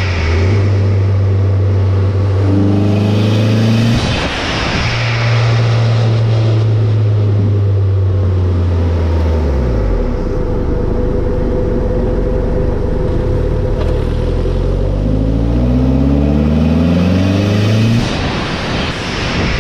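Gen 4 Toyota 3S-GTE turbocharged four-cylinder engine revving: held at steady revs, dropping to a low run about ten seconds in, then climbing again until the throttle closes near the end. A TiAL Sport Q 50 mm blow-off valve, fitted with a −11 psi spring, vents with a burst of hiss when the revs drop, near the start, about four seconds in and near the end.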